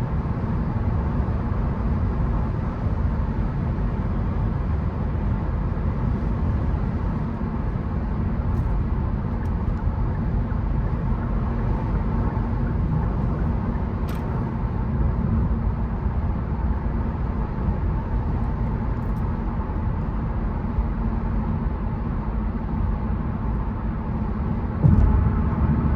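Car driving on the road: a steady low rumble of tyre and engine noise. There is a sharp click about halfway through and a sudden louder knock near the end.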